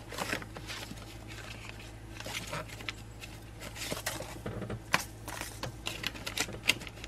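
Scattered light clicks, taps and rustling of someone rummaging through kitchen seasonings and packets.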